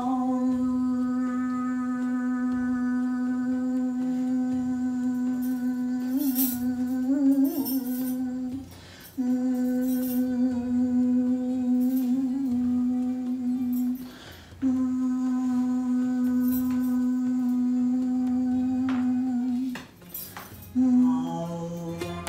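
A woman's voice chanting in a hum on one steady held note. There are three long notes of about eight, five and five seconds, with short breaks for breath, and a brief note near the end.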